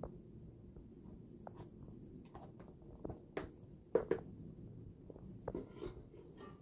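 Scattered light clicks and knocks of hands handling a cloth pad and the metal handle of a kettle over a charcoal fire, the loudest pair about four seconds in, over a low steady background noise.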